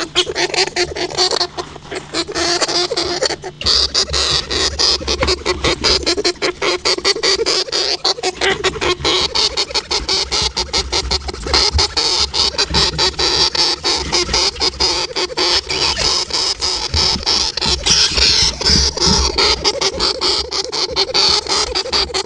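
Hamster squeaking and chattering in a rapid, unbroken run of short squeaks, with a low hum underneath from about three and a half seconds in.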